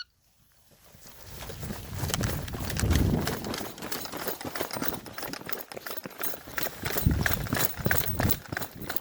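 A horse's hooves beating rapidly on the ground as it moves off at speed, growing louder over the first few seconds. There are surges around three seconds in and again near the end.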